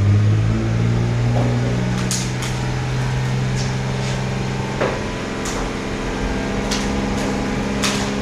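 A steady machine hum, with several sharp clicks and clinks of metal at irregular moments.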